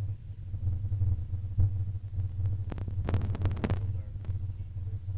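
A steady low throbbing hum with a few sharp clicks and clinks, the densest run of them about three seconds in.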